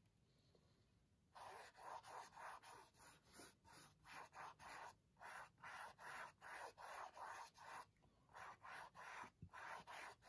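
A paintbrush swishing side to side across a stretched canvas as it lays on paint, in faint, quick, even strokes about two to three a second, starting about a second and a half in.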